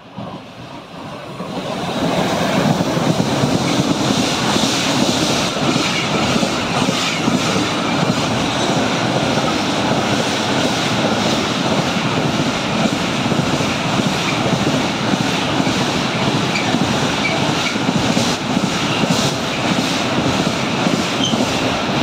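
Container freight train hauled by an electric locomotive rolling past close by. The steady noise of wheels on rails builds over the first two seconds as the locomotive arrives, with repeated clatter of wheels over the rail joints as the wagons go by.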